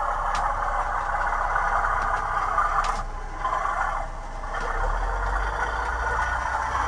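Diesel engine sound from a Hornby TTS sound decoder, playing through the small speaker of a model Class 97 (Class 37) locomotive as it runs. The notch up and notch down functions make little audible difference. A couple of short clicks come about half a second in and again about three seconds in.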